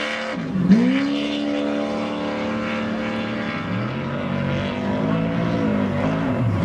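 Off-road race truck engine running at high revs. Its pitch drops sharply and climbs back about half a second in, holds high for about three seconds, then dips and rises several times as the throttle comes off and on.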